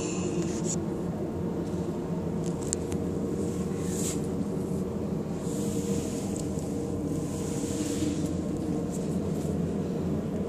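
Steady low mechanical hum holding several fixed pitches, with faint brief hissy rustles over it now and then.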